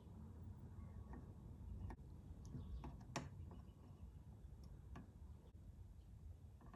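Faint, scattered light ticks, about half a dozen, from a soldering iron tip and solder wire touching the solder points of an Xbox One controller's circuit board while fresh solder is added to them.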